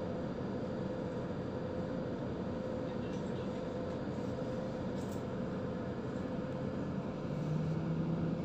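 Cabin noise inside a Scania Citywide CN280UB CNG city bus on the move: a steady hum of the gas engine and road noise. About seven seconds in, a lower drone joins and the noise grows a little louder.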